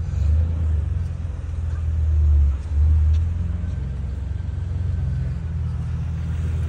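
Low, steady rumble of car engines, swelling briefly about two to three seconds in.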